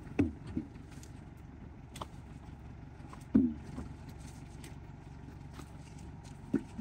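A steady low engine hum, with a few short sharp knocks and thuds over it; the loudest comes about three and a half seconds in.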